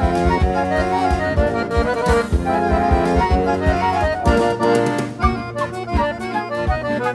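Instrumental music led by an accordion, with a steady drum beat underneath.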